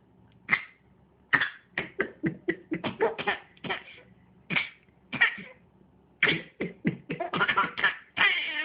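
Short fake coughs from an eight-month-old baby and an adult, dozens of quick bursts, some spaced out and some in rapid runs. Near the end a drawn-out voice sound slides down in pitch.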